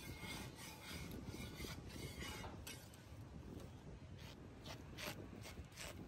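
Batter being spread by a gloved hand across a round metal griddle: a series of short rubbing, scraping strokes, closer together in the second half, over a steady low rumble.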